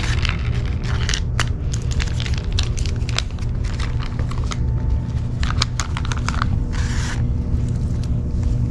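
A plastic cat-food pouch crinkling and tearing as it is opened and squeezed out into a paper bowl, a quick run of clicks and crackles with a short rushing burst about seven seconds in, over a steady low rumble.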